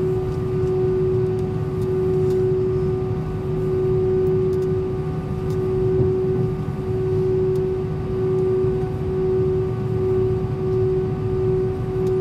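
Inside the cabin of an Airbus A320 taxiing, the engines at idle run with a steady drone: one held tone over a dense low rumble.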